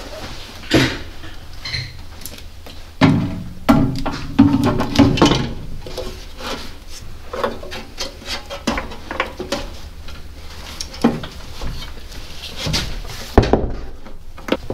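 Irregular knocks and clatter as a battery is set into a tractor's steel battery box and its cables are handled, loudest around three to five seconds in.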